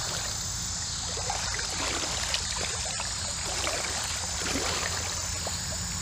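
Steady creek ambience: water trickling, a constant high-pitched insect drone, and a low steady rumble underneath.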